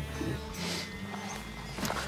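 Quiet background music, with a short soft rustle about half a second in and a faint click near the end.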